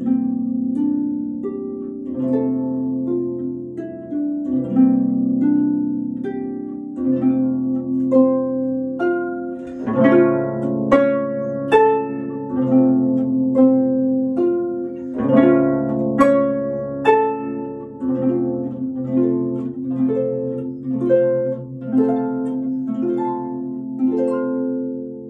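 Pedal harp played solo: a flowing run of plucked notes and chords over ringing bass notes, swelling louder and reaching higher in the middle.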